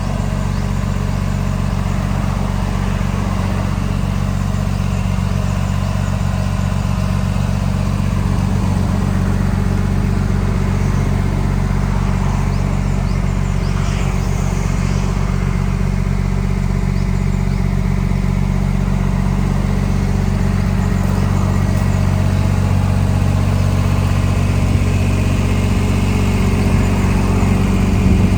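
Yanmar YB10 crawler backhoe's diesel engine running at a steady speed.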